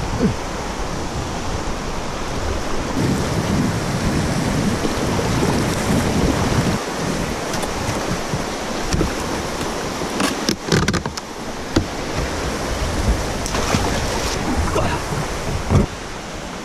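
Steady rush of a whitewater river, with wind and handling noise on the camera's microphone. A few sharp knocks around the middle and one more near the end.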